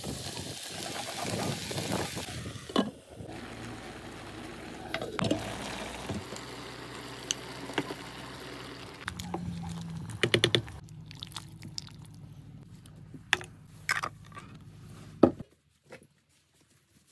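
Cooking sounds: chopped vegetables dropped into a hot frying pan with a hiss of sizzling for the first few seconds, then a spoon stirring a pot with scattered sharp knocks against its side. The sound cuts off near the end.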